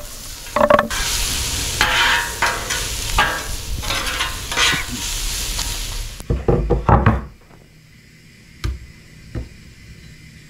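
Sliced onions and bell peppers hitting the hot, oiled steel top of a Blackstone 28-inch griddle and sizzling loudly, with the scrape of a knife pushing them off a wooden cutting board. About six seconds in the sizzle cuts off suddenly, followed by a few heavier knocks and then a quiet room with a couple of light taps.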